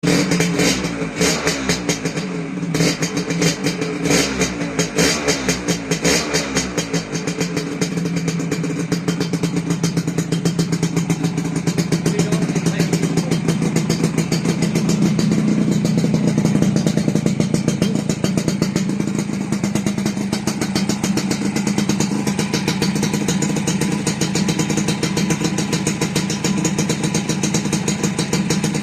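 Motorcycle engine running, blipped unevenly for the first several seconds and then held at a steady speed.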